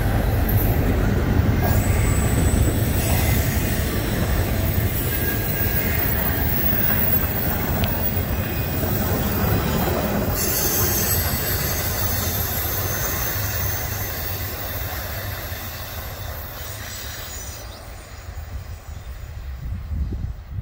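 Norfolk Southern intermodal freight cars rolling past with a steady rumble and high thin wheel squeal, fading away as the end of the train passes and recedes around the curve.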